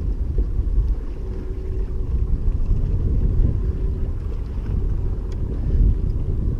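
Steady low rumble of a boat's motor running, mixed with wind buffeting the microphone.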